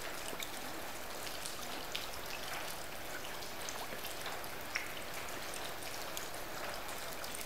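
Steady rain falling: an even hiss with a few scattered drop ticks.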